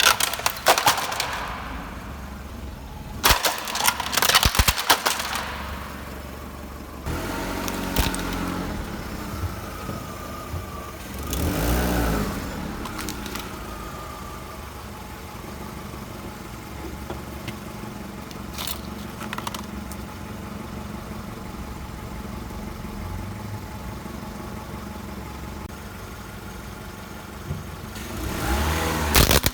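A car's engine running, with bursts of sharp cracking and crunching as its tyres roll over and crush brittle objects: a cluster a few seconds in and another near the end. The engine swells briefly about a third of the way through.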